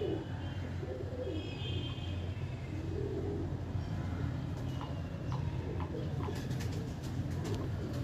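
Domestic pigeons cooing softly and repeatedly, with a few higher chirps, over a steady low hum.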